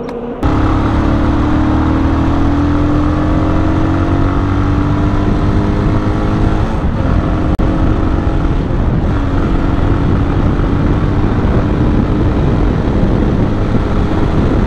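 A sport motorcycle's engine pulls at speed under heavy wind noise on the microphone. It starts abruptly about half a second in, and its note climbs slowly as the bike accelerates.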